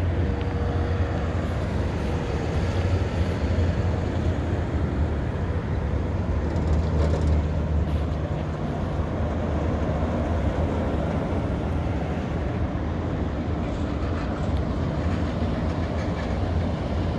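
Steady low rumble of pickup push trucks and race cars rolling slowly across the salt flat, with a faint engine hum.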